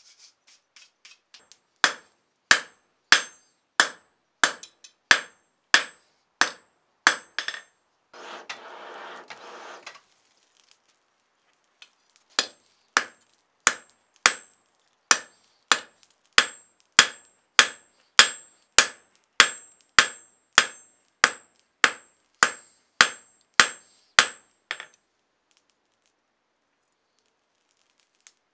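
Hand hammer striking red-hot steel on a small block anvil, with a bright metallic ring on each blow. The blows come at a steady pace, a little under two a second, in a short run and then a longer one, with a two-second scraping hiss in the pause between them.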